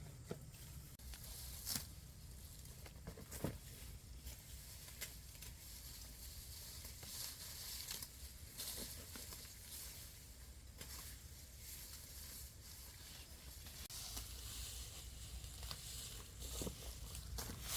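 Faint rustling and crackling with many scattered sharp clicks and snaps, a little busier near the end.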